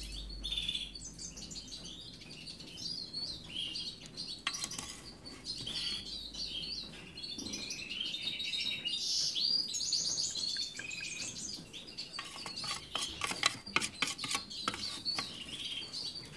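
Small cage finches chirping and twittering over and over in a birdroom. A run of light clicks and taps comes in over the last few seconds.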